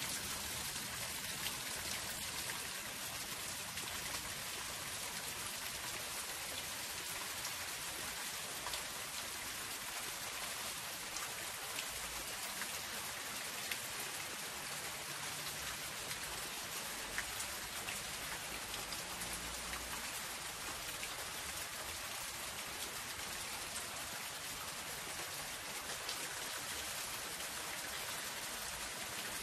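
Soft rain falling on a zinc sheet-metal roof: a steady hiss of rain with many individual drops ticking on the metal.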